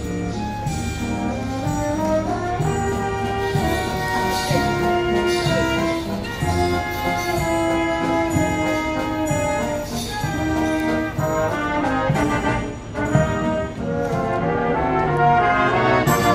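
Student brass band playing a tune live: trumpets and trombones carry the melody over a drum kit, with cymbal and drum strokes growing louder near the end.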